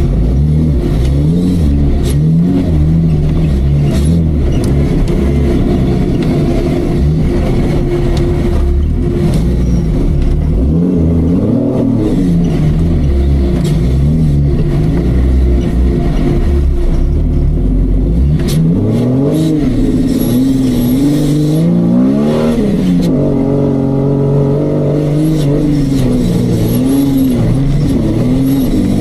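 Off-road Jeep engine revving up and down under load, its pitch rising and falling every second or two over a steady low rumble, with a few short knocks.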